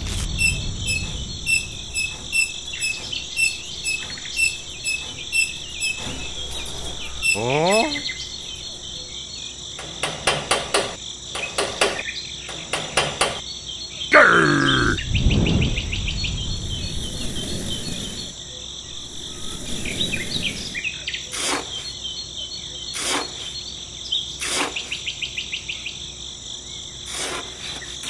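Crickets chirping steadily, with birds calling over them. About halfway through, a drawn-out call slides down in pitch.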